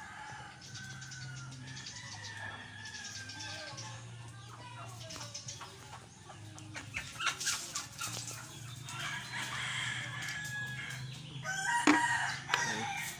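A rooster crowing and chickens clucking, with a few clicks in the middle and a sharp knock near the end that is the loudest sound.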